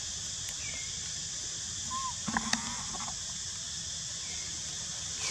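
A few short, high chirping animal calls over a steady high hiss, with a quick run of clucking calls and clicks about two and a half seconds in.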